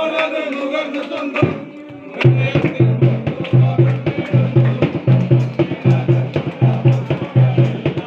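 Dance music at a party. Voices sound over it at first, then about two seconds in a heavy bass beat with percussion comes in and keeps a steady, repeating rhythm.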